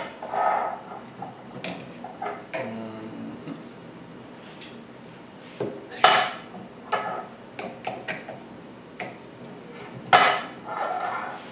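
Irregular clicks and knocks of small plastic and metal parts being handled and fitted together, with louder clacks about six seconds and ten seconds in.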